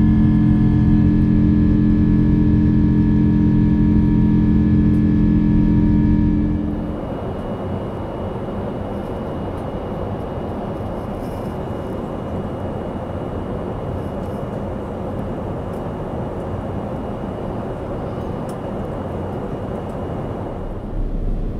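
Jet airliner engines droning with several steady tones at takeoff climb power. About seven seconds in, this changes abruptly to the steady rush of cabin air noise heard from a window seat, with a faint high whine.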